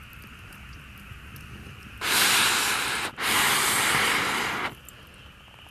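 Two long puffs of air blown through a metal fire blow pipe onto glowing campfire embers, each a loud breathy hiss, the first about a second long and the second about a second and a half, with a brief break between them.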